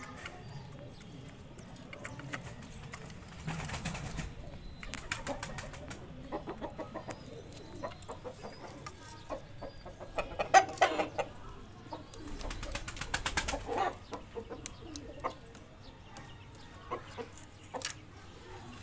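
Aseel chickens: several short bouts of rapid wing-flapping, with a few soft clucks between them.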